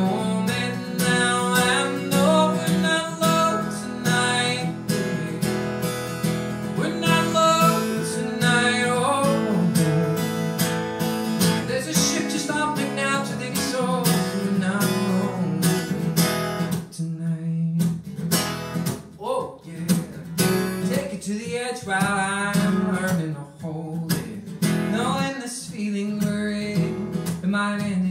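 Acoustic guitar strummed steadily as song accompaniment, with a man's singing voice over it at times.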